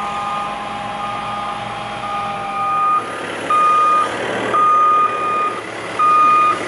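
Reversing alarm on a heavy vehicle beeping about once a second, growing much louder about halfway through, over the low running of its engine.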